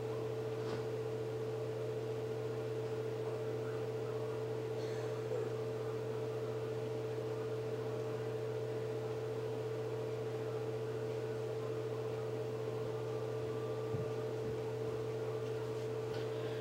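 Steady low electrical hum with a fixed higher tone over room noise, with a few faint, brief clicks.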